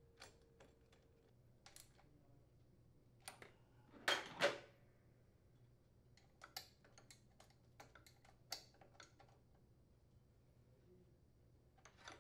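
Light clicks and taps of hands and tools handling the small engine's starter mounting hardware and wiring, with two louder clacks about four seconds in and a run of small ticks after.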